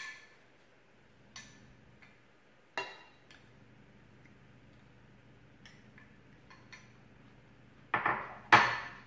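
Spoon and dishes clinking: scattered sharp clinks of a utensil against a small ceramic bowl and a glass salad bowl, with a few faint ticks between. Near the end come two louder clattering knocks half a second apart, the second the loudest.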